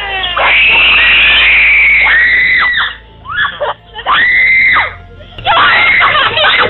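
Several people screaming in fright, a series of long, high-pitched screams with short breaks about three and five seconds in, the frightened reaction to a scare on the trail. Heard through a security camera's microphone, so the sound is thin and lacks highs.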